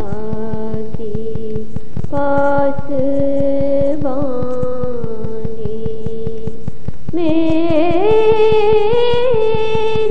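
Vocal music of an Urdu nazm: a voice holding long sung notes with slowly wavering pitch over a steady, fast pulsing beat. A new phrase, higher and louder, enters about seven seconds in.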